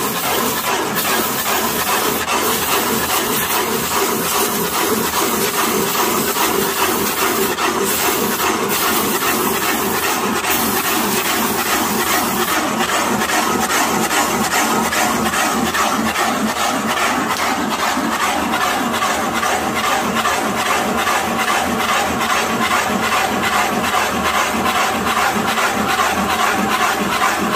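Woodworking lathe spinning a log while a cutter bores into it, a continuous even cutting of wood as the log is hollowed out for a beehive.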